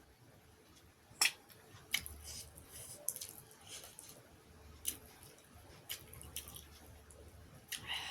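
Close-up eating sounds: wet chewing and lip smacks, broken by sharp clicks every second or so, with a cluster of them near the end.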